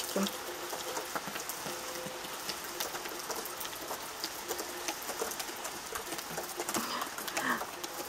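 Rain falling on a garden: a steady hiss with many separate drops ticking.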